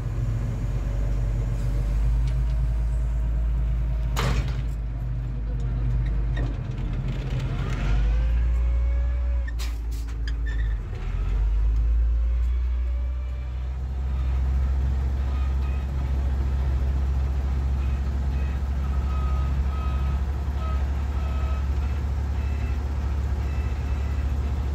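Mercedes-Benz MB-trac 1300's six-cylinder diesel engine running steadily, heard from inside the cab; its note shifts a couple of times. Two sharp clacks stand out, about four and ten seconds in.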